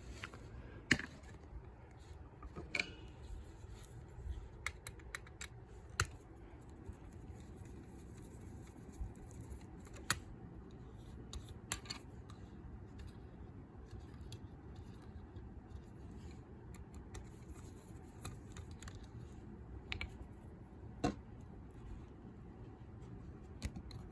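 Scattered small metallic clicks, taps and scrapes of tools on a lever lock's steel case as the lock is opened up, with a faint steady background hum.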